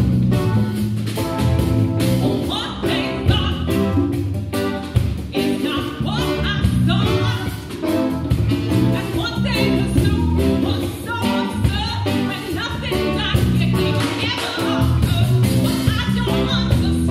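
Band music with a woman singing lead over bass guitar, electric guitar and a steady beat.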